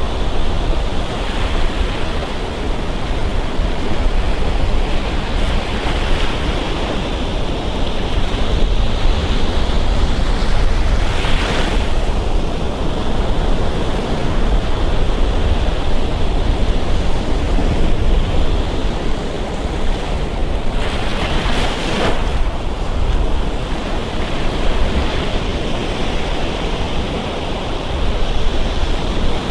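Gulf Coast surf breaking and washing up on a sandy beach, a continuous wash with brighter swells about eleven seconds in and again near twenty-one seconds. Wind rumbles on the microphone underneath.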